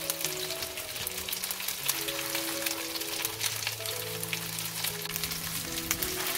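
Minced-pork tteok-galbi patties sizzling and crackling in oil in a frying pan, with background music of held notes.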